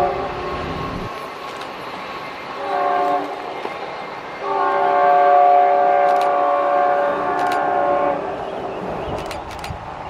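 Locomotive air horn sounding several chime notes at once: the end of one blast just as it begins, a short blast about two and a half seconds in, then a long blast of nearly four seconds. The long-short-long sequence is the end of the standard grade-crossing horn signal.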